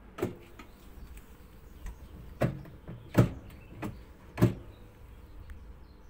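Handling knocks and clicks on the twin tub washing machine: about five sharp knocks spread over a few seconds, the loudest about three seconds in.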